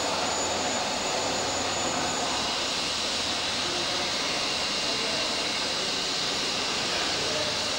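Jet engine running steadily: a constant rushing noise, with a thin high whine that fades out about two seconds in.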